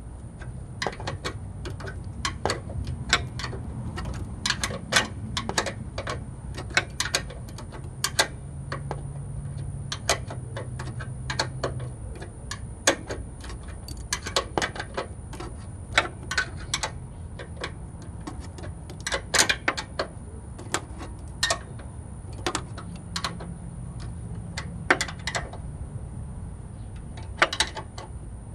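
Metal wrench clicking and ticking against a bolt in short, irregular strokes as the bolt of a replacement airbag impact sensor is tightened by hand. A faint low hum sits underneath.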